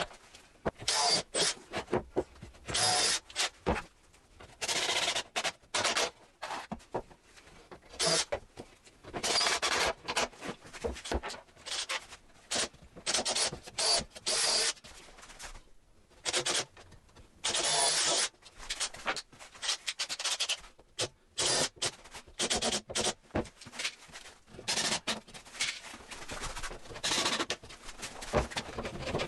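Hand work on wood: a long run of irregular rubbing strokes, each lasting up to about a second, with short pauses between them.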